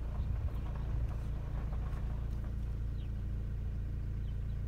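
Car engine running at low revs, heard from inside the cabin as the car rolls slowly: a steady low hum.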